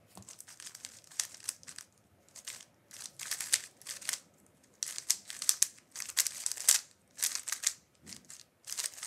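56 mm DaYan GuHong Pro plastic speedcube being turned fast by hand: rapid clacking of the layers, in quick runs with a few short pauses.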